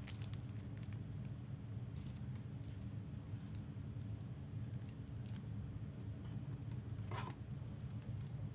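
Trading cards being handled and flipped through: faint scattered snaps and swishes of card stock sliding against card stock, over a steady low hum.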